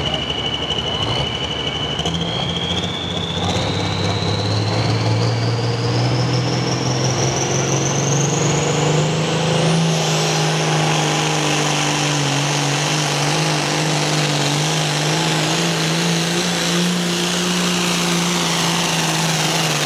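Super Pro Farm pulling tractor's turbocharged diesel engine building revs at the line, its turbo whistle rising steadily in pitch over several seconds, then running hard at a steady high pitch under full load as it pulls the sled.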